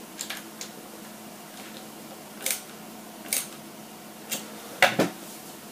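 Light, scattered clicks and taps of small model-truck parts, screws and hand tools being handled on a workbench, about half a dozen in all, with a sharper clack near the end, over a faint steady hum.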